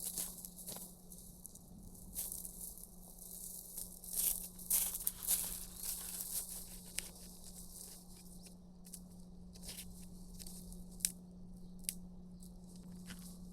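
Irregular rustling and crinkling, with louder bursts a few seconds in and two sharp clicks near the end, over a steady low hum.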